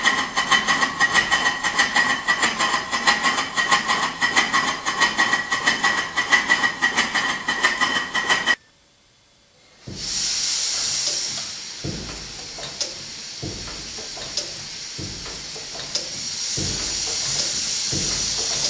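1923 R. Wolf steam engine running fast with a quick, even mechanical beat and a ringing tone. It cuts off suddenly, and after about a second of near silence a steady hiss of steam follows, with a soft thump about every one and a half seconds.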